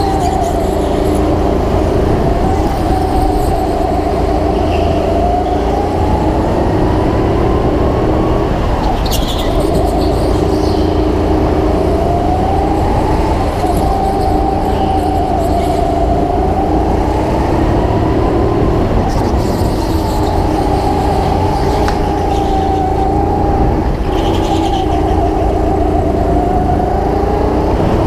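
Go-kart engine heard from on board while lapping, its pitch rising as it accelerates and falling as the driver lifts off for corners, over and over, with a steady low rumble underneath.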